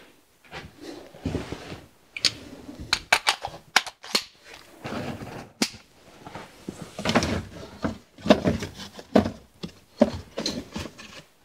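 Tools and small metal parts being handled and set down on wooden workbenches: irregular knocks, clicks and short clatters.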